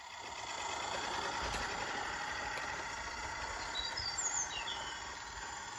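Steady outdoor background noise, with a few faint bird chirps about four seconds in.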